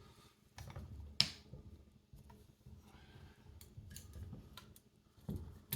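Metal clicks and light knocks of a golf iron being handled and clamped in a loft-and-lie bending machine, with a sharp click about a second in and two more near the end.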